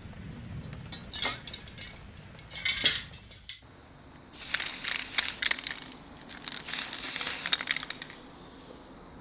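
Metal clicking and clinking from the works of an old mechanical alarm clock, in four short bursts of rapid clicks.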